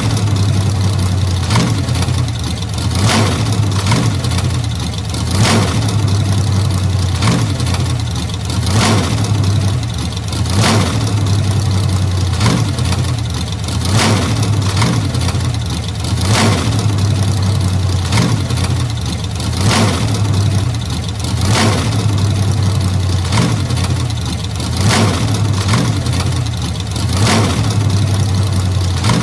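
Old car engine running steadily with a deep hum, its loudness swelling and easing a little, with sharp ticks recurring every second or two.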